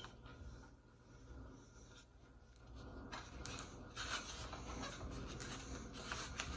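Rustling and crinkling of takeout food packaging being handled, with a few light clicks. It is faint for the first three seconds and busier after that.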